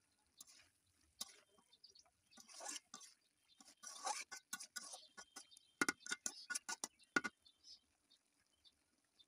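Thick fig and potato curry being stirred in a pan with a metal spoon: irregular scraping and wet shuffling, with a run of sharp clicks and knocks of the spoon against the pan about six to seven seconds in.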